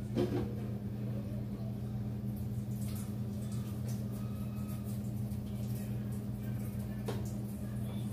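Steady low hum of a running kitchen appliance, with a few faint knocks of a pot being handled at the sink, about a second in from the start, about three seconds in and near the end.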